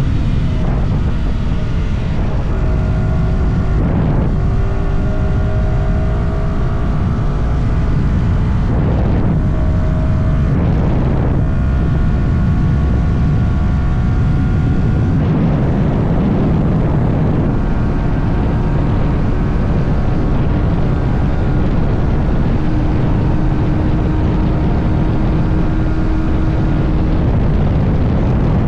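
Yamaha R125's single-cylinder four-stroke engine running under way at speed, with heavy wind rush over the microphone. The engine note changes pitch a few times, around 4, 9, 11 and 16 seconds in.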